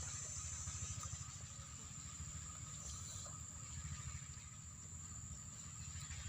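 Steady high-pitched drone of insects such as crickets or cicadas, over a continuous low rumble.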